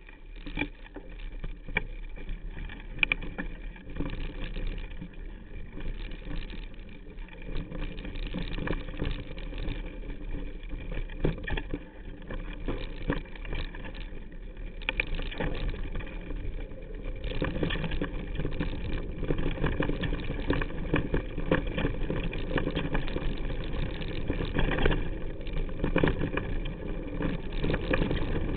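Mountain bike riding fast down rough dirt singletrack, heard through a camera clamped to the handlebars: a continuous clatter and rattle of tyres on dirt and stones and the bike shaking over bumps, with many sharp knocks. It gets louder and rougher a little past halfway.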